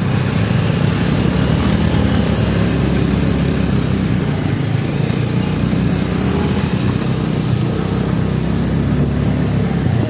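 Motorcycle engine running steadily during a ride on a rough dirt road, with a constant hiss of wind and road noise.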